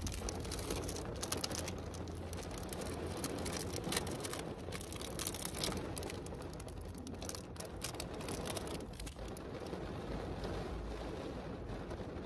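Plastic snack wrapper crinkling with quick clicks and rustles as it is handled and opened, over a steady hiss of rain on the car roof.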